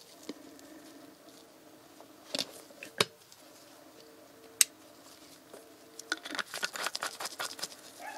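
Gloved hands handling a small plastic oil bottle and its snap-on nozzle cap. There are a few sharp plastic clicks, the loudest about three and four and a half seconds in, then a quick run of crackling and rubbing near the end, over a faint steady hum.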